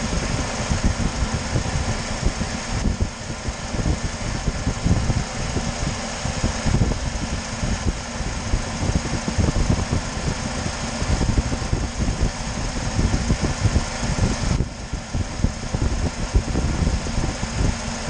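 UAZ Patriot's electric radiator cooling fan running steadily. It has been switched on by its coolant temperature switch, which cuts in at 87 °C, as the coolant reached that temperature.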